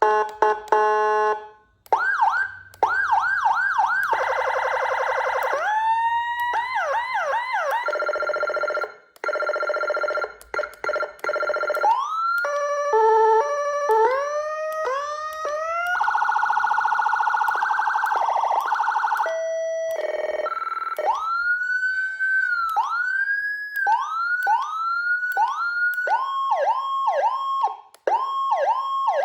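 HHS V3 40-tone electronic siren stepping through its tone patterns, changing every few seconds: rapid rising yelps, fast warbles, two-note hi-lo alternations, stepped beeps, and slower rising wails.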